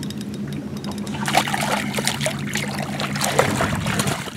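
Hooked smallmouth bass splashing at the surface beside the boat as it is grabbed by hand, with irregular splashes from about a second in. A steady low hum runs underneath and stops near the end.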